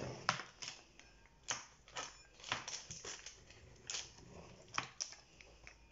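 Pizza-cutter wheel rolling through raw dough in a metal baking tray, cutting it into pieces, heard as irregular sharp clicks and taps every half second or so.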